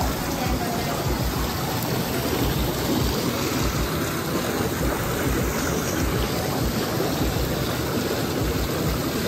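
Whirlpool bathtub jets churning the water in a steady rush, with a low rumble underneath and the tap pouring into the tub.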